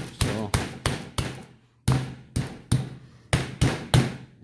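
Chicken breasts in a plastic bag being pounded flat with a flat-based meat pounder on a plastic cutting board: a steady run of dull strikes, about three a second, with a brief pause a little before halfway.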